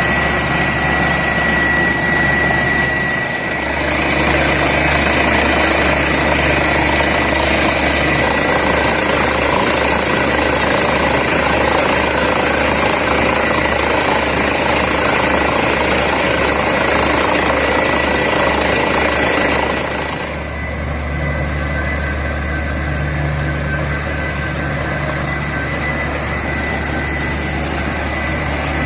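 Borewell drilling rig and its air compressor running steadily with a thin whine. About twenty seconds in, the hiss eases and a deeper, steadier engine hum takes over.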